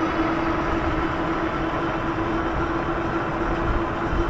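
Electric fat-tire bike riding on pavement: a steady, even-pitched motor whine over tyre noise and wind buffeting the microphone.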